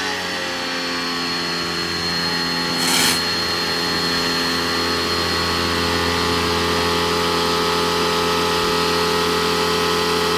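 Pressure washer running steadily with a constant machine hum, settling slightly in pitch in the first second; a brief hiss of spray about three seconds in.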